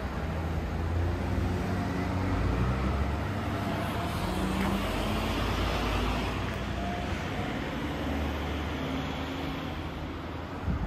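Street traffic: road vehicles running by, with engine hum and tyre noise that swell as a car passes about halfway through.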